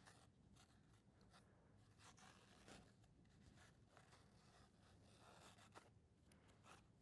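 Faint rustling and crinkling of a toilet paper roll being unrolled and its sheets handled, with scattered soft scratchy ticks.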